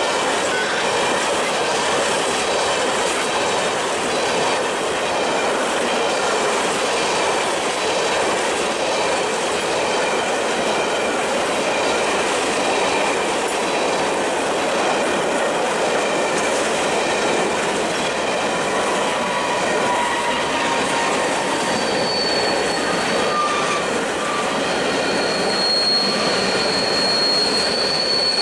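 Freight train cars rolling past on jointed track with a steady clatter of wheels. A high, steady wheel squeal sets in near the end.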